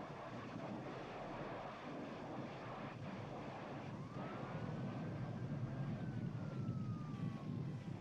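Steady wind noise buffeting the microphone over a low rumble. About halfway through, a thin whistling tone rises, holds, then slowly falls.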